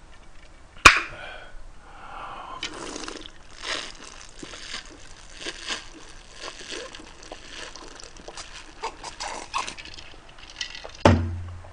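A man drinking from a glass close to the microphone: small swallowing and clicking sounds throughout, a sharp click about a second in, and a heavier thump near the end.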